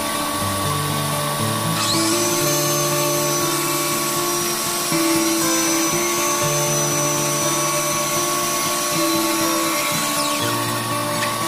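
A handheld power tool spins up about two seconds in, runs with a steady high whine, and winds down near the end, under background music.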